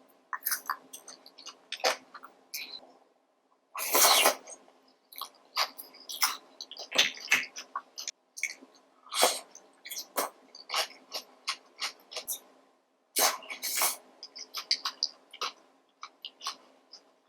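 Close-miked mukbang eating sounds of king crab in a creamy cheese sauce: irregular wet mouth smacks and chewing clicks, with louder slurping bursts about four seconds in and again near the end.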